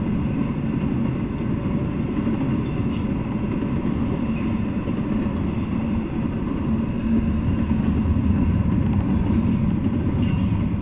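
Double-stack intermodal freight train rolling past: a steady low rumble of well cars and wheels on the rails, getting a little louder in the last few seconds.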